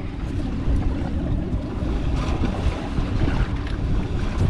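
Wind buffeting the microphone in a steady low rumble, with sea water washing against the hull of a drifting boat and a brief rise in hissing splash about two seconds in.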